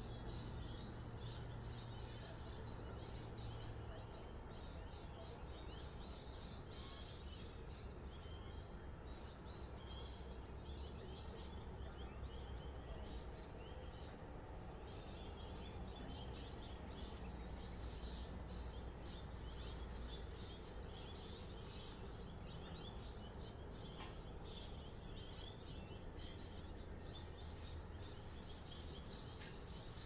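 Outdoor ambience from high above suburbs: a steady low background rumble with faint, busy chirping of small birds throughout.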